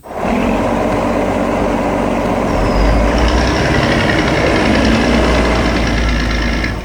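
Heavy diesel engine of a construction vehicle running, starting abruptly, with a deep rumble that grows stronger about two and a half seconds in.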